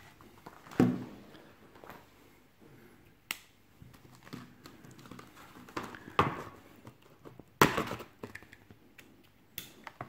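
Hands handling a plastic blister pack with a pocketknife inside on a tabletop: scattered sharp clicks and knocks of plastic, the loudest about seven and a half seconds in.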